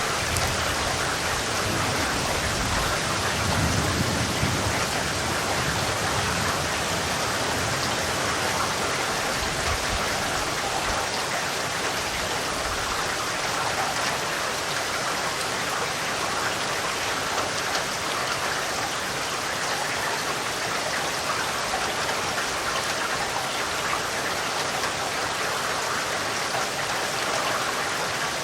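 Steady, heavy rain falling, an even hiss of many drops. A low rumble of distant thunder swells about three to five seconds in.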